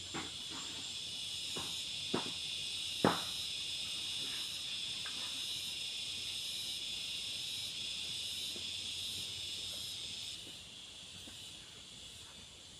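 A steady high-pitched chorus of insects, which drops off about ten seconds in. Over it come a few sharp knocks in the first three seconds, the loudest about three seconds in, as cut bamboo poles are picked up and knock together.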